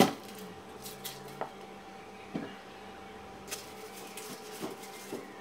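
Onions being peeled with a knife over a plastic bowl: a sharp knock at the very start, then a handful of lighter knocks and taps spread through, over a faint steady hum.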